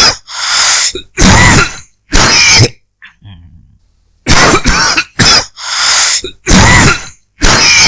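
A person coughing dry, harsh coughs in two fits. The first fit has three coughs and the second, about a second and a half later, has five.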